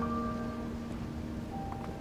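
Background music: a struck chord that rings on and slowly fades, with a few faint short high notes near the end.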